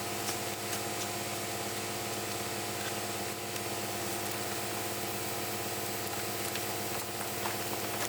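A truck engine running steadily, a constant hum under a hiss with a few faint clicks, as from the concrete pump truck or mixer truck working the pour.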